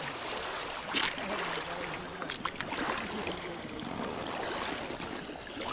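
Water lapping and splashing, with a few short sharp splashes about one, two and three seconds in.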